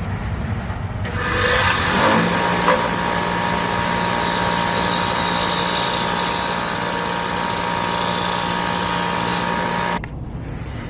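A grinder running steadily, grinding down the shoulder of a bolt that a drill spins against it, rigged as a makeshift lathe. A steady hiss and whine start about a second in, a steady hum joins about a second later, and the sound cuts off abruptly near the end.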